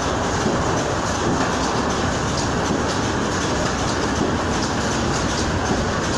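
Automatic cartoning machine running, packing glazed curd-cheese bars one at a time into cardboard cartons: a steady, dense mechanical clatter with fast ticking.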